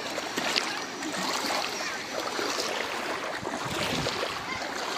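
Floodwater sloshing and splashing around someone moving through it: a steady wash of water noise with scattered small splashes.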